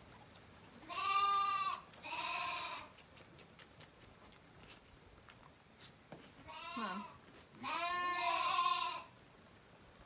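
Zwartbles lambs bleating: two bleats close together in the first three seconds, then a wavering, falling bleat and a longer one in the second half. They are hungry lambs calling to be fed at bottle-feeding time.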